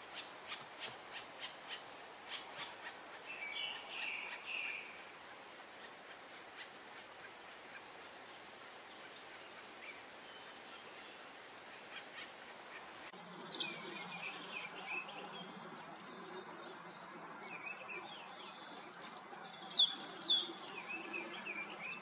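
Black woodpecker nestlings begging from the nest hole: short rasping calls repeated about three to four times a second, thinning out after about five seconds. About 13 seconds in the sound switches abruptly to songbird chirping and twittering over a low steady hum, loudest near the end.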